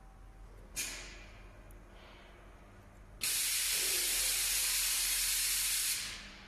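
Compressed air hissing: a short sudden blast about a second in that fades quickly, then a loud steady hiss that starts abruptly a little past halfway, lasts almost three seconds and tapers off near the end.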